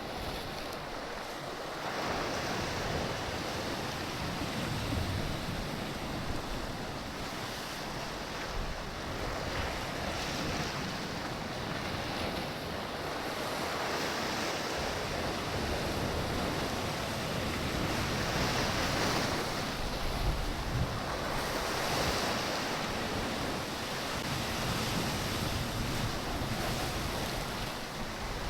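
Sea waves washing in, the rush swelling every few seconds, with wind buffeting the microphone.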